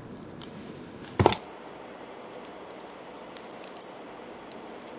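One sharp click a little over a second in, then a few faint light clicks: a small plastic gel jar and its lid being handled.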